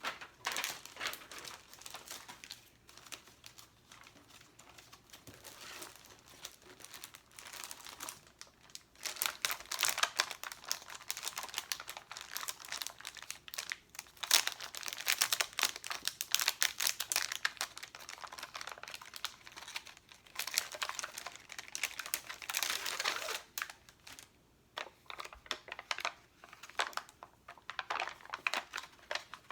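Close-miked crinkling and crackling of plastic sticker sheets and backing paper being handled, in stretches with short pauses. The busiest, loudest stretches fall in the middle.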